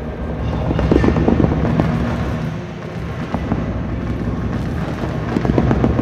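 Amplified sewing machine played as a noise instrument: a loud, dense rumble full of crackling clicks, swelling about a second in and again near the end.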